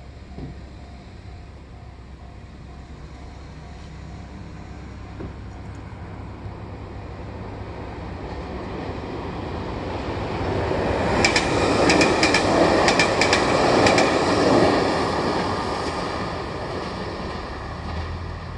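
Kobe Electric Railway 1000-series electric train passing. Its rumble builds from about eight seconds in and is loudest for a few seconds, with a quick run of wheel clicks over the rail joints. The sound then fades as the train moves away.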